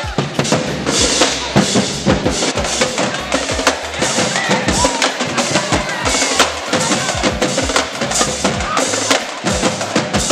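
A marching band drumline of snare and tenor drums playing a busy drum beat, with many quick, sharp strikes.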